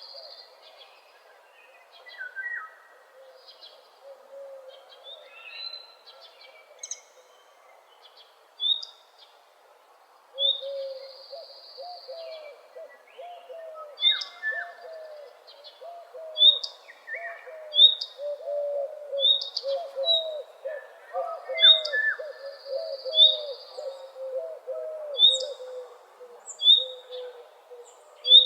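Several birds singing together in a morning chorus. A short high note repeats about once a second through the second half, a high whistle is held for a second or so now and then, and a lower, quick warbling runs underneath from about ten seconds in.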